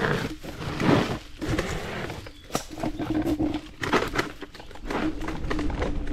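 MS Energy X10 electric scooter clattering and knocking as it rides over a bumpy dirt forest track, with irregular thumps and rattles. A low steady hum comes and goes through the second half.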